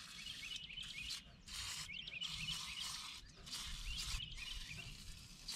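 WD-40 aerosol can spraying through its straw in short hisses, about five bursts with brief gaps between them. The penetrating oil is going onto the rusted valves and pistons of a seized flathead six.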